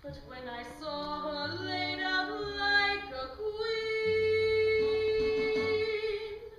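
A woman singing into a microphone over a low instrumental accompaniment. Her melody moves through several notes, then settles on one long held note from about halfway through that she sustains until just before the end.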